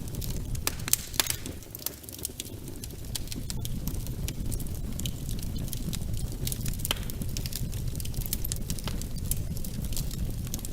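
Wood fire in a fireplace crackling, with frequent irregular sharp pops over a steady low rumble of burning flames.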